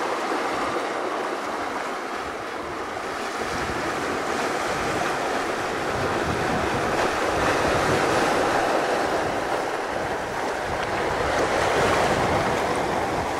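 Sea surf breaking on a rocky shore: a steady wash of waves that swells and eases, loudest about two-thirds through and again near the end. Wind buffets the microphone with a low rumble.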